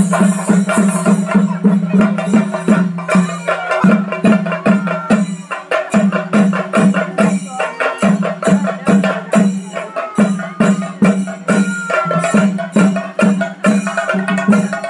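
Chenda drums played in a fast, driving rhythm for a Thira ritual dance, their strokes repeating without a break over a steady ringing drone.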